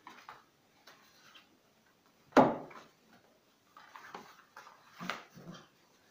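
Irish Red Setter puppies and an adult setter playing at the side of a wooden whelping box: a string of short, sharp sounds, the loudest about two and a half seconds in.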